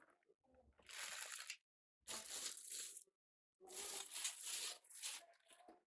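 Packaging crinkling and rustling as it is handled and pulled apart, in three bursts of about a second or two each with short pauses between.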